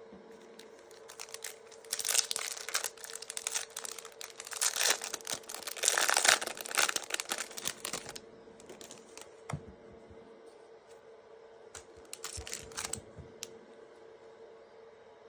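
Wrapper of a Topps Series One trading card pack crinkling and tearing as it is opened, busiest from about two to eight seconds in, with a few softer crinkles later. A faint steady hum runs underneath.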